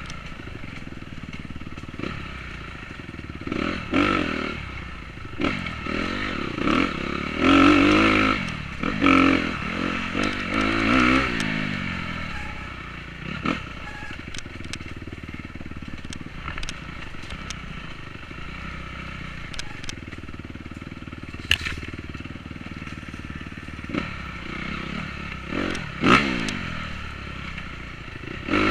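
Dirt bike engine revving up and easing off again and again as it is ridden along a rough trail, with clatter and scraping from the ride. The surges are loudest in the first half and again near the end, with a quieter, steadier stretch in between.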